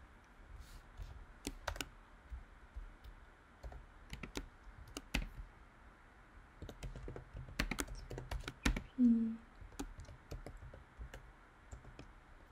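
Typing on a computer keyboard: irregular runs of key clicks as a terminal command is entered. A brief low hum sounds about nine seconds in.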